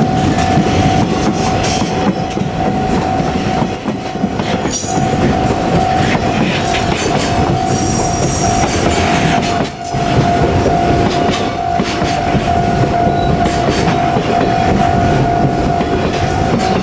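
JR Freight train rolling past, its wheels rumbling and clattering over the rails, with a steady high tone under it and a brief high wheel squeal about eight seconds in.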